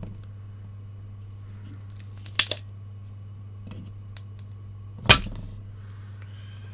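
Spring-loaded desoldering pump (solder sucker) firing on a circuit board's pins: its plunger snaps back with a sharp crack, a quick double about two seconds in and a single louder one about five seconds in, sucking up molten solder. A low steady hum sits underneath.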